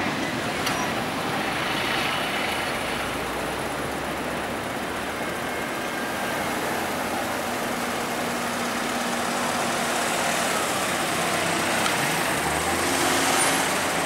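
Road traffic at a level crossing: cars and scooters starting across as the barriers lift, with a car engine revving up as it pulls away near the end.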